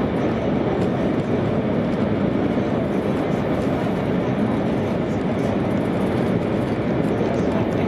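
Steady running noise inside the passenger car of an E2 series Shinkansen train: an even rumble and rush with no breaks or distinct events.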